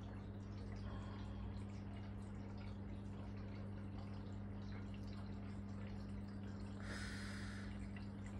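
Aquarium filter running: faint water trickling and dripping over a steady low hum, with a brief hiss about seven seconds in.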